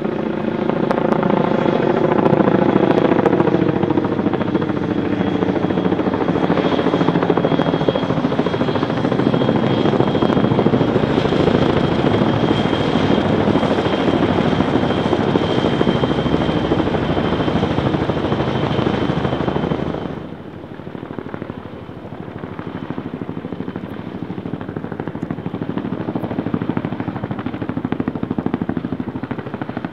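CH-46 Sea Knight tandem-rotor helicopter flying overhead with a seaplane slung beneath it on a cable, its rotor and turbine noise loud. The engine pitch falls over the first few seconds, then a steady high whine runs through the middle. About two-thirds of the way in, the sound drops abruptly to a quieter, more distant helicopter sound.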